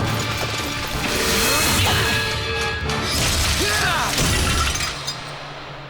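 Cartoon soundtrack music mixed with crashing, shattering sound effects, fading down near the end.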